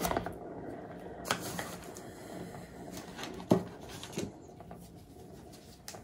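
Turntable spinning a canvas: a steady rumbling whir with a faint low hum that starts at once and slowly gets quieter, broken by a few sharp knocks, the loudest about three and a half seconds in.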